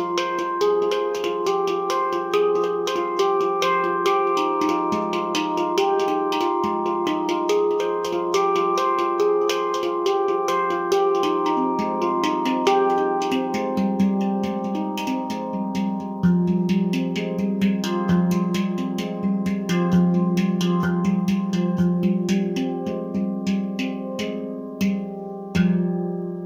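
Nimo Sounds handpan in the F low Pygmy scale played with the hands: quick runs of struck notes ringing over one another, with the low notes growing stronger in the second half. Near the end a final strike rings out and fades.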